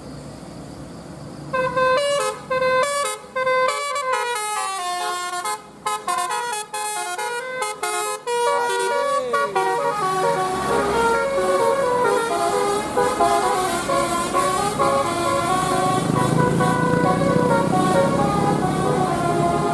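Basuri telolet bus horn, an electronic multi-tone horn, playing a melody in quick stepped notes that starts about a second and a half in. There is a brief sliding pitch glide midway, and the notes then run together into fuller, held chords.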